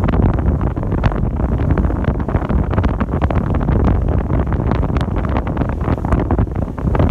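Wind buffeting the microphone aboard a moving cruise ship: a loud, steady rumble full of quick crackles, with the boat's running noise underneath.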